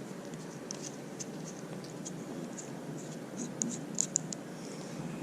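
Faint scattered clicks and light scraping of a wrench working the handle nut on a Shimano baitcasting reel as the nut is loosened, with a cluster of clicks near the end.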